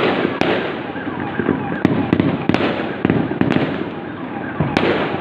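Fireworks going off in an irregular string of sharp bangs and crackles, about two a second, over a continuous din of crowd noise.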